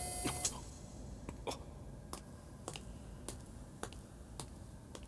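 A series of sharp, short clicks, roughly one every half second or so, like cautious steps on metal. A steady electronic hum cuts off about half a second in.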